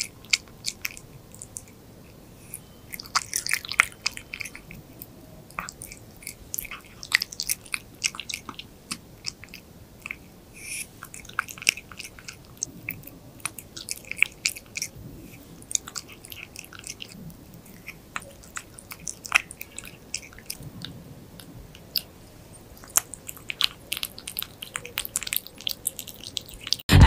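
A cat chewing raw meat off a skewer, with irregular wet smacks and crunchy bites, many times over.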